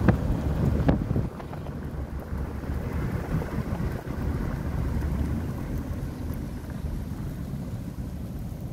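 Road and wind noise inside a moving car, a steady low rumble with wind buffeting the microphone. It is louder, with a couple of knocks, for the first second or so, then drops to a lower, steadier rumble.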